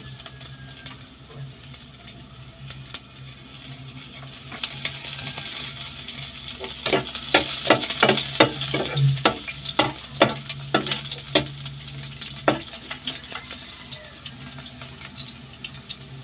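Garlic and onion sizzling in oil in a frying pan. About seven seconds in comes a run of spatula strokes scraping against the pan as they are stirred, lasting several seconds.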